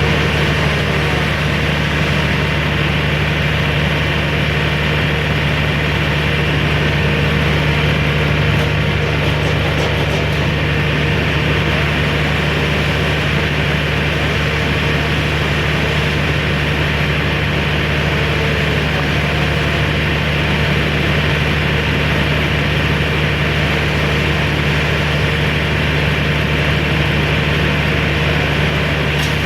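A heavy engine running steadily at a constant speed, with no revving.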